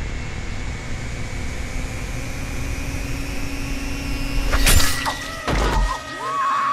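Tense film soundtrack: a steady low rumble, then a sudden loud crash like breaking glass about four and a half seconds in and a second impact a second later, followed by a high wavering cry near the end.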